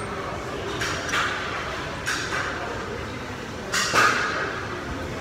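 Repetitions of a triceps exercise on a cable machine: three short whooshing rushes about a second and a half apart, the last one the loudest, over the steady background noise of a large gym hall.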